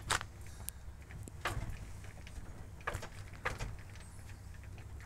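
Propeller of a light aircraft's Rotax engine being turned over by hand, giving a few short sounds a second or two apart. This is the "burp" of the engine: turning it over to push oil back into the tank before the oil level is checked.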